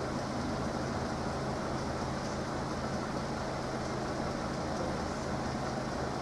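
Steady road-traffic noise with the low, even hum of vehicle engines idling, queued at a closed level crossing.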